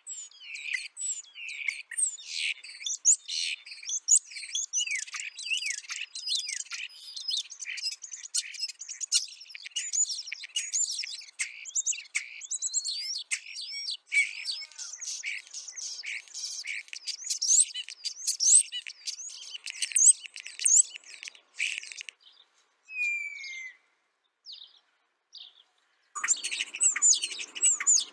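Starlings singing in a dense, fast chatter of chirps, clicks and whistles. It breaks off about two-thirds of the way through, leaving a few scattered notes including one falling whistle, then starts again near the end.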